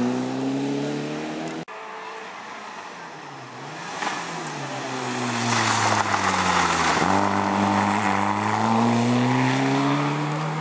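Rally cars at full throttle on a tarmac special stage. First an engine note climbs as a car accelerates away and is cut off suddenly under two seconds in. Then a second rally hatchback comes past at high revs: its note falls, jumps back up about seven seconds in and climbs again as it pulls away.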